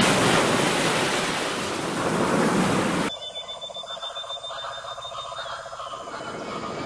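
Ocean surf sound effect, a dense steady wash of waves, that cuts off suddenly about three seconds in. A quieter ambient electronic drone with a thin high tone takes over.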